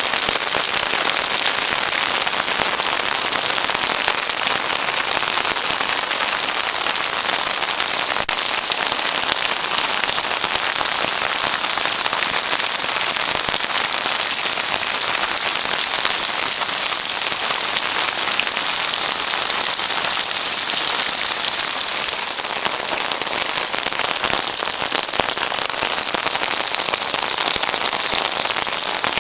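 Heavy monsoon rain pouring down steadily, splashing on a flat, water-covered rooftop.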